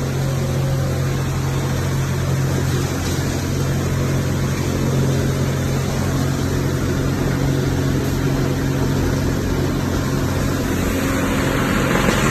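Crushing and milling machine running steadily with a low motor hum and a constant grinding noise; the sound cuts off suddenly at the end.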